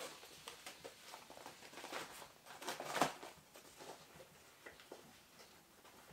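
Faint rustling and light handling knocks as a small folded Primus Ultra Burner P-153 gas stove is worked into its soft fabric storage pouch. The strongest knock is about three seconds in.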